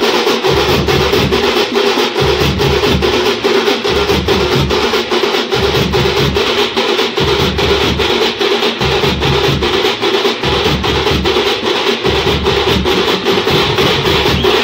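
A festival drum band playing a fast, dense rhythm: many quick stick strokes on smaller drums, with big bass drums thudding underneath in spells of a second or two.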